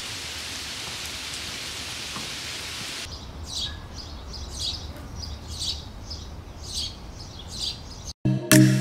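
Nature ambience: a steady rain-like hiss for about three seconds, then a bird calling over and over, about once a second, over a low rumble. It cuts off shortly before the end.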